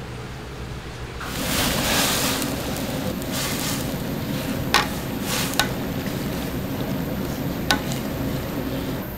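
Sliced meat and green onions sizzling and bubbling in broth in a large stainless steel pan on a gas range; the sizzle picks up about a second in and holds steady, with three sharp clinks partway through.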